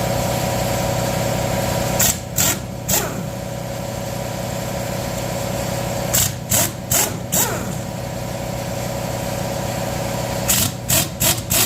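An air compressor runs steadily while an air impact wrench fires in short bursts: three about two seconds in, four around six to seven seconds, and several more near the end. It is working loose heat-shrunk exhaust manifold bolts on a Ford 429 big block with a 14mm socket.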